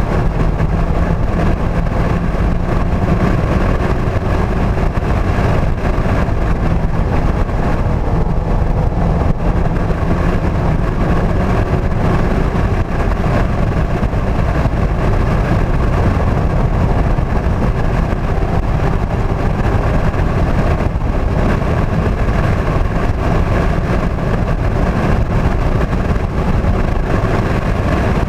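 Inside the cabin of a 2016 Mazda MX-5 Club, its 2.0-litre four-cylinder engine running hard at track speed, the pitch wavering as the car speeds up and slows for corners, over a steady low road and tyre rumble.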